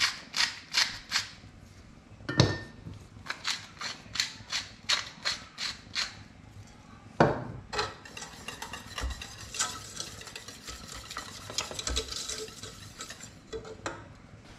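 Wooden pepper mill grinding in a run of short crunches, about four a second, broken by two knocks. From about eight seconds in, a spoon stirs and scrapes a thick roux-based sauce in a metal saucepan.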